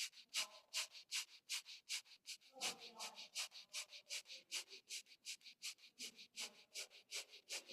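Kapalbhati breathing: a person blowing air out sharply through the nose in quick, even puffs, a little under three a second, with the inhalations passive and unheard between them.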